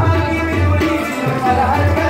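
Live folk music: a harmonium and a rubab playing a melody over deep, repeating hand-drum beats.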